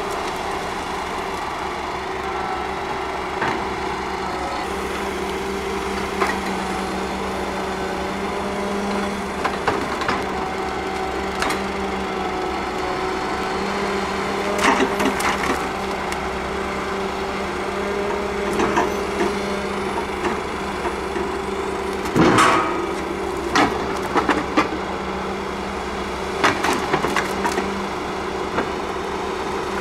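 Ponsse Buffalo Alpine forwarder's diesel engine running steadily as its hydraulic crane loads logs, with scattered wooden knocks and clunks as logs are gripped and dropped onto the load. The loudest clatter comes about two thirds of the way through.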